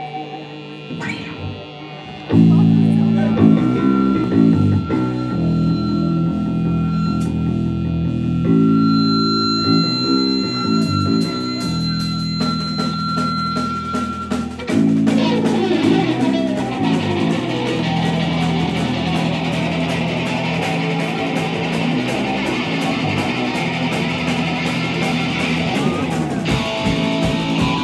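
A rock band playing live at a sound check: loud, sustained low electric guitar and bass chords, joined by a steady beat of sharp hits about eleven seconds in, with the full band filling out around fifteen seconds in.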